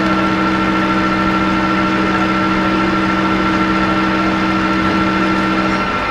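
TRAK CNC lathe running an automatic turn-down cut, spindle turning and tool cutting the stock under flowing coolant: a loud, steady machine hum with a higher whine over it. Two low hum tones drop out just before the end while the whine carries on.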